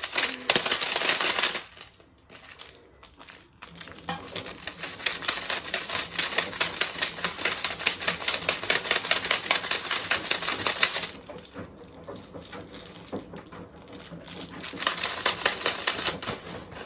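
Washing machine rattling and clattering rapidly as it is run to destruction, in three stretches: briefly at the start, a long run from about four to eleven seconds in, and again near the end.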